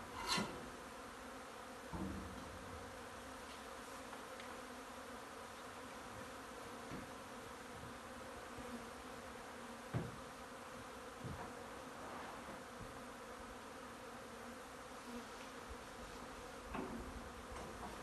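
A honey bee swarm buzzing steadily, with many bees flying around their clustered swarm. A few soft knocks sound over the hum, the clearest about two and ten seconds in.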